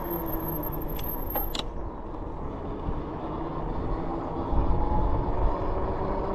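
Rad Rover e-bike's 750-watt, 48-volt rear hub motor whining under a rumble of fat tyres on pavement and wind on the microphone. The whine drops in pitch as the bike slows for a corner, then climbs again as it picks up speed. A few short clicks come about a second in.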